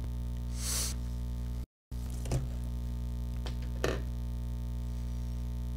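Steady electrical mains hum on the microphone line, with a brief hiss about half a second in and a few faint taps of a stylus on a tablet screen.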